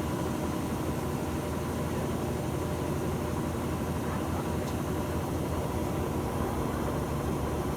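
Electrolux LF75 washing machine on its spin cycle: a steady motor and drum hum that holds an even pitch and level.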